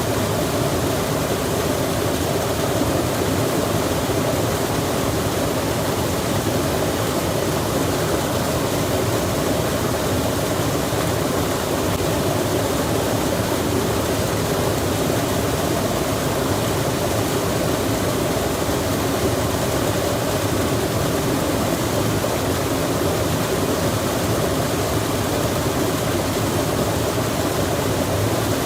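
Rain falling by a running stream: a steady, even rush of water that stays the same throughout, fullest in the low and middle range.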